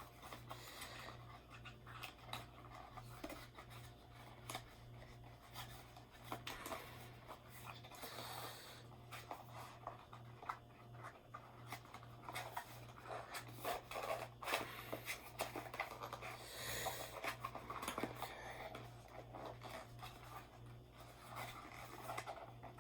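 Faint rubbing, scratching and small clicks of cardboard packaging and small parts being handled, over a steady low hum.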